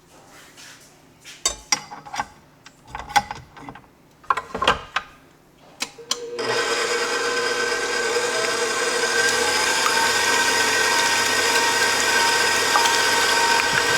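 A few knocks and clatters, then about six seconds in an electric mixer switches on and runs steadily, whipping egg whites toward soft peaks.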